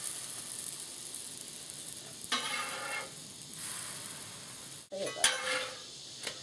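Sweet potato pancake batter sizzling steadily on a Blackstone flat-top griddle. A metal spatula scrapes across the griddle's steel surface as pancakes are flipped, once about two seconds in and again about five seconds in.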